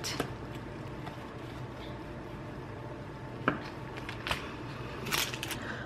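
Serrated bread knife sawing through a soft, freshly baked banana bread loaf on parchment paper: faint scraping, with a few short crackles of crust and paper in the second half.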